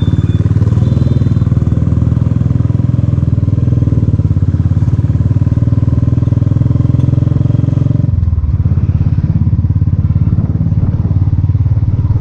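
Single-cylinder Royal Enfield motorcycle engine running under way, a steady loud thumping exhaust beat heard from the rider's seat. About eight seconds in the sound turns duller.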